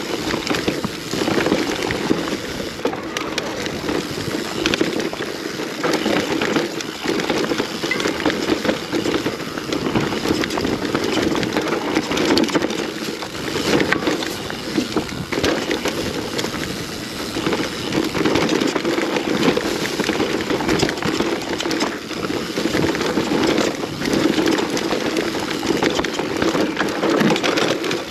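Enduro mountain bike descending a rough trail: knobby tyres rumbling over dirt, roots and rocks, with constant clattering and knocking from the chain and frame.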